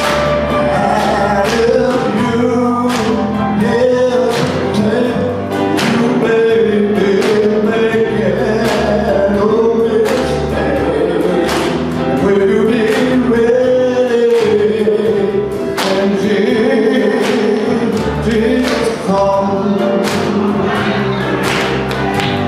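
Gospel choir singing with band accompaniment, drum hits throughout.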